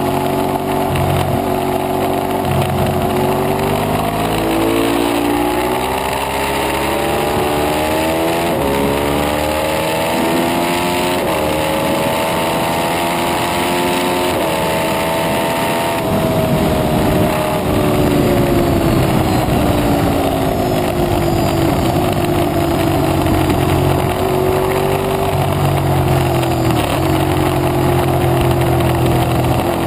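Ducati 848 Evo's L-twin engine under hard acceleration, its note climbing and stepping down several times as it is upshifted. About halfway in the throttle closes and the revs fall away for braking, then settle to a steadier note through the corner. A constant rush of wind noise runs under it.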